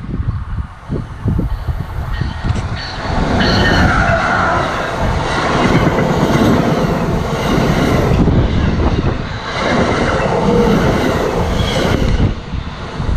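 Amtrak passenger train passing close by at speed: a loud, steady rush of wheels on rail and moving coaches that builds up about three seconds in and drops away near the end.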